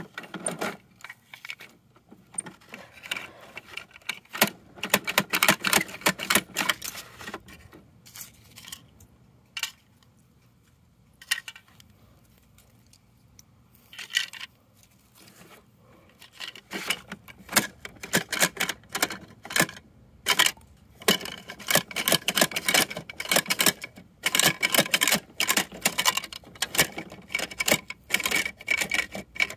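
Small plastic parts of a toy side-loading garbage truck and its bins clicking and rattling as they are handled, in bursts of rapid clicks, with only a few scattered clicks in a quieter spell around the middle.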